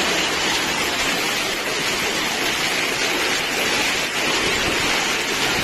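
Hail and heavy rain falling hard in a hailstorm, a steady dense hiss of countless small impacts on pavement and hail-covered ground.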